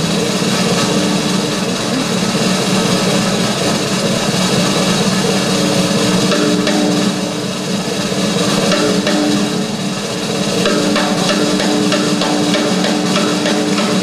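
Music with drums and percussion, playing steadily.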